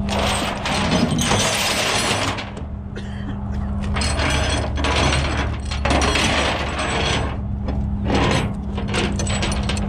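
Tow truck winch at work, an irregular mechanical clatter and ratcheting that comes and goes in stretches over the truck's steady engine hum.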